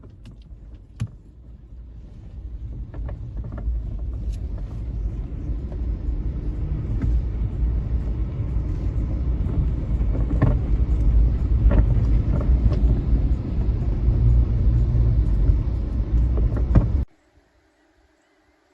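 A low, noisy rumble that grows steadily louder, with scattered short clicks, and cuts off suddenly near the end.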